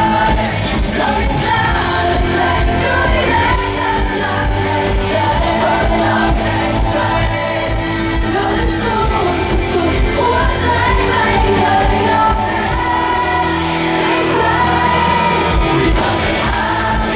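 Live pop song over a concert sound system: singers with amplified band music and a steady beat.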